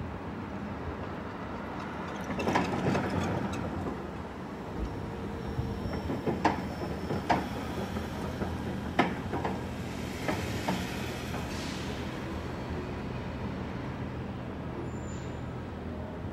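City street traffic heard from inside a stationary car: a steady low hum under passing-vehicle noise, with a swell of noise a few seconds in and several sharp knocks through the middle.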